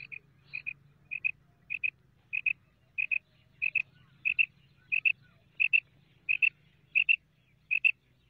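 Female common quail calling: a steady series of quick double notes, about thirteen of them, repeated roughly every two-thirds of a second, the call hunters use to lure male quail.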